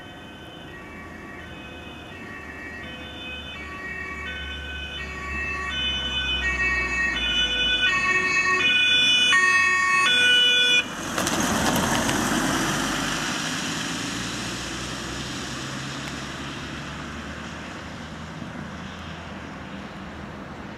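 German fire brigade crew van's two-tone siren (Martinshorn) approaching, alternating between a high and a low tone and growing steadily louder. About 11 seconds in, the siren breaks off as the van passes close by. Its engine and tyre noise rushes past and then fades as it drives away.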